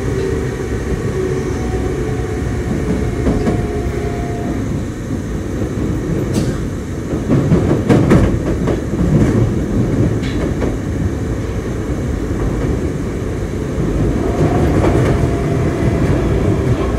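Osaka Metro 22 series subway train running, heard from inside the car: a steady rumble of wheels on rail. It gets louder for a few seconds about halfway through, with clicks from the wheels.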